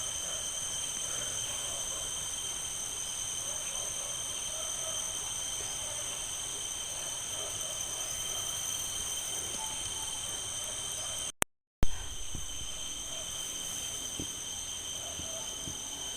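Night chorus of crickets and other insects, a steady shrill chirring at several high pitches. About eleven seconds in, the sound cuts out for a split second and comes back with a sharp click.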